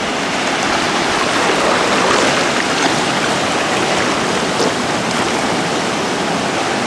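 Shallow sea water washing and splashing around rocks, a steady rush of surf that swells briefly about two seconds in.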